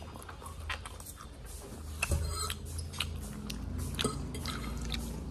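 Close-up chewing and biting of a fried chicken lollipop: irregular wet, crunchy mouth clicks over a steady low room hum.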